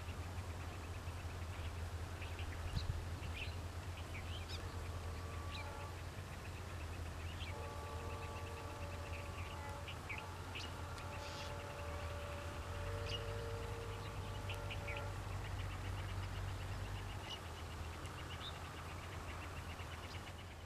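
Small birds chirping in short, scattered calls over a steady low hum, with a faint, held multi-note tone in the middle.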